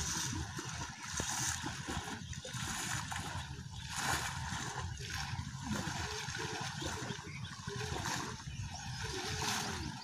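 Water splashing in uneven bursts as people wade through shallow water.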